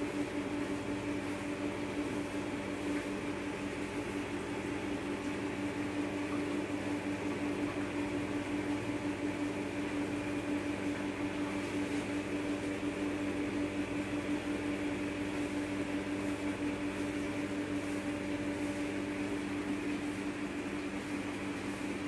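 Steady machine hum at one constant pitch over a faint hiss, unchanging throughout.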